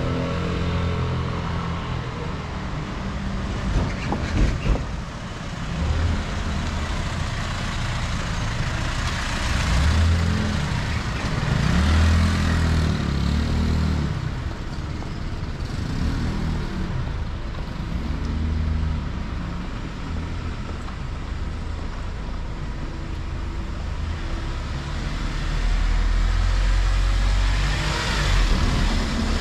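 Street traffic: cars and trucks driving past, their engine notes rising and falling, with a heavier, lower rumble passing near the end. A few sharp knocks about four seconds in.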